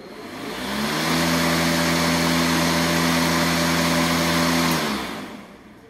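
DeWalt DCMWP233U2 20-volt cordless lawn mower's electric motor and blade running with a steady hum. It spins up over about the first second, holds steady, then winds down near the end. It is a fairly quiet mower with a lower tone.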